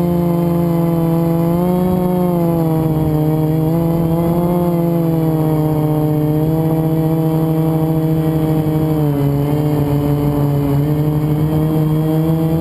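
FPV quadcopter's electric motors and propellers whining steadily under throttle, the pitch wavering up and down with throttle changes and dropping a step near the end. The quad is flying on a motor with a bad bearing, which made it twist at full throttle.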